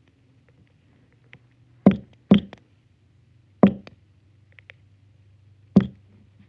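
Four short knocks and clicks from a small plastic lip gloss tube being handled and opened close to the phone's microphone: two close together about two seconds in, one near the middle and one near the end.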